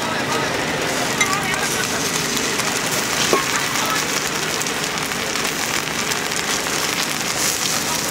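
Egg omelette sizzling on a hot round griddle, with a couple of short clicks of a metal spatula against the pan.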